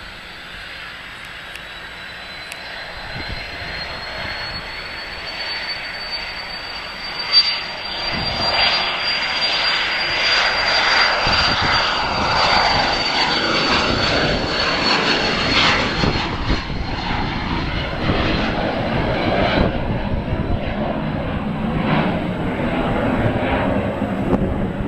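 Small business jet's two rear-mounted turbofans at takeoff power during the takeoff run and climb-out: a thin high whine climbs slowly in pitch, then a broad jet roar swells from about eight seconds in and stays loud to the end. A brief sharp knock sounds just before the roar builds.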